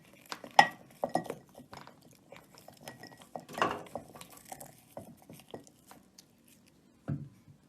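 Light clinking and knocking, irregular and scattered, with a louder cluster about three and a half seconds in.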